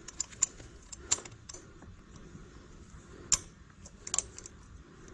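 Scattered sharp metallic clicks and scrapes as a small hand tool works at a stubborn screw on the metal bracket of a replacement ice-machine water pump, trying to loosen it. The loudest click comes about three seconds in.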